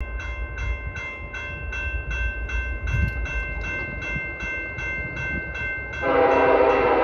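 Grade-crossing warning bell ringing about two and a half strikes a second over a low rumble. About six seconds in, the horn of the approaching Union Pacific SD70ACe lead locomotive starts sounding, steady and louder than the bell.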